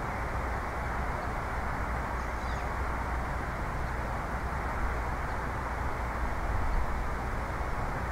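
Steady outdoor background noise, a low rumble with an even hiss above it, and a faint short high chirp about two seconds in.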